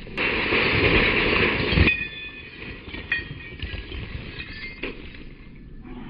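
Sledgehammer smashing through the glass screen of an RCA CRT television, played back slowed down: a loud crash lasting about two seconds that stops sharply, then scattered clinks and tinkles of broken glass falling.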